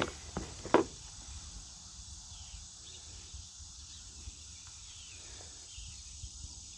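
Faint steady high-pitched insect drone of crickets, with a short knock or rustle about a second in.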